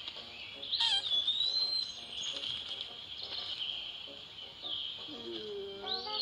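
Birds chirping over a steady high-pitched chorus, with a drawn-out whistled note about a second in and a lower, honk-like call near the end.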